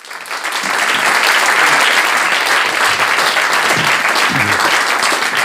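Audience applauding: dense clapping that swells within the first second and holds steady.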